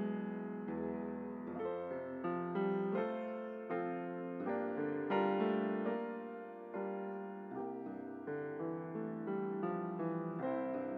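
Solo piano playing a slow, gentle piece, with chords and melody notes struck one after another, each fading away.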